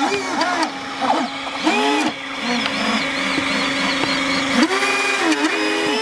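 Electric ducted fans on a model hovercraft whining, their pitch rising and falling again and again as the thrust is varied, over a steady unchanging drone.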